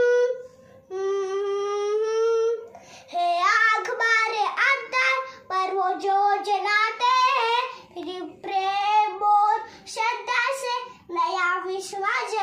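A young boy singing a Hindi song solo without accompaniment, holding two long notes at the start, then singing a quicker run of words.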